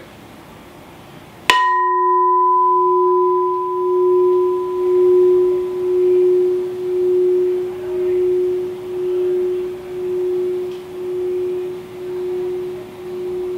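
A resonant sculptural vessel struck once about a second and a half in, then ringing with one steady low tone. Its brighter overtones die away within a few seconds, while the main tone rings on, swelling and fading about once a second.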